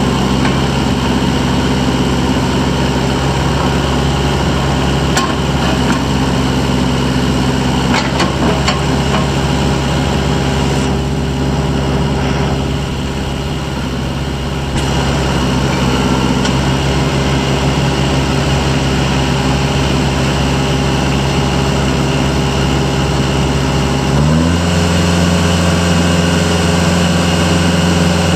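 Kubota L45 tractor loader backhoe's 45 hp Kubota diesel engine idling steadily. Near the end its speed rises quickly and holds steady at a higher speed.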